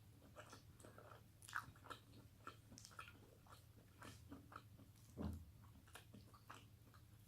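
A person chewing food close to the microphone: quiet, irregular mouth clicks and small crunches, with one louder, deeper thud about five seconds in.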